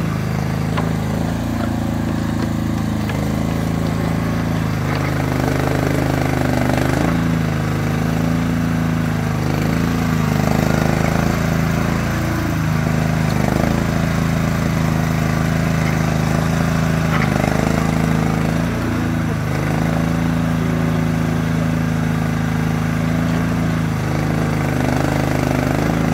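Mini excavator engine running steadily while digging. Its pitch sags briefly several times, around the 3, 5, 12 to 13 and 19 second marks, as the arm and bucket work.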